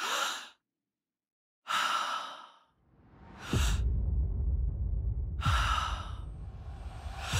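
A woman's two sharp, frightened breaths, with silence between them. About three and a half seconds in, a heavy low rumble sets in, with loud whooshing hits twice over it: film-trailer sound design for an explosion.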